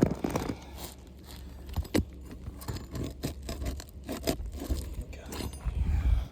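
Asphalt shingles being pried up and worked loose from their nails: a run of irregular scrapes, clicks and crackles over a low rumble. The shingles are tearing as they are lifted, a sign that they cannot be repaired.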